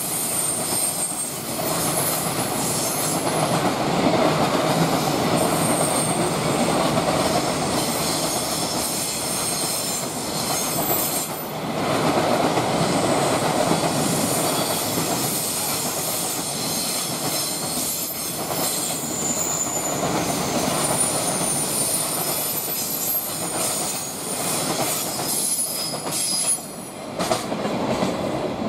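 Container freight train's wagons rolling past, the wheels clattering over the rail joints with a steady rumble. Thin high-pitched wheel squeals come and go throughout.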